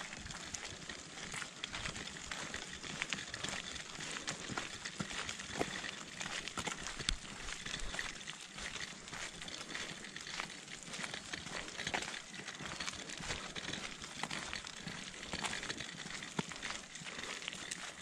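Footsteps crunching on a gravel track, a run of short irregular crunches over a steady outdoor hiss.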